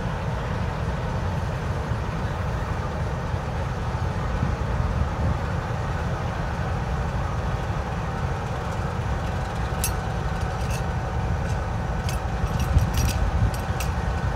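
GEU20 diesel-electric locomotive engine running steadily, a low rumble with a faint steady hum over it. A cluster of short sharp clicks comes from about ten to thirteen and a half seconds in.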